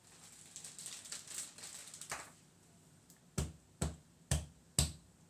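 A soap mould full of freshly poured cold process soap batter is knocked down on the table four times, about two sharp knocks a second, to settle the batter and knock out air bubbles. Before the knocks there is a soft rustling.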